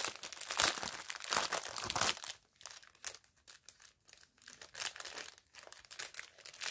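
Crinkling of a small clear plastic bag of diamond painting drills being handled and unpacked: dense crackles for about two seconds, then sparser, quieter ones.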